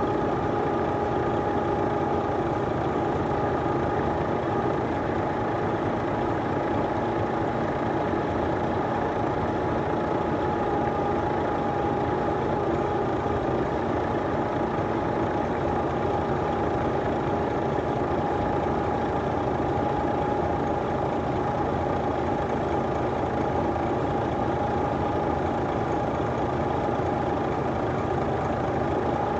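Heavy vehicle engine running steadily, with a constant whine over the engine noise.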